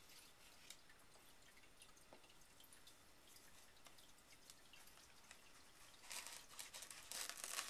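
Faint handling of cardboard packaging: small scattered taps and clicks as fingers touch the packed camcorder and remote in the box insert, then about six seconds in a louder stretch of cardboard rustling and scraping.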